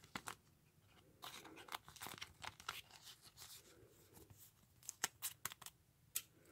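Quiet rustling and crinkling of a thin plastic card sleeve as a chrome baseball card is slid into it, with a few short sharp clicks about five seconds in.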